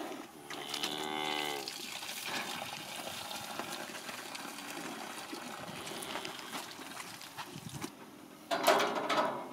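A cow mooing once for about a second, starting about half a second in. A steady rustle follows, and a louder burst of noise comes near the end.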